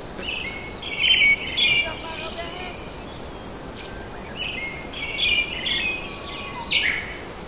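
A songbird singing a phrase of quick, high, warbled notes, repeated twice, over a steady background hiss.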